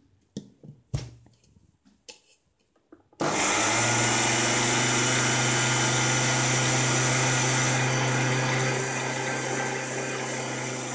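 A few light knocks, then about three seconds in an electric mixer grinder's motor starts and runs steadily, grinding soaked idli rice with dried red chillies and salt before any water is added. It gets slightly quieter over the last few seconds.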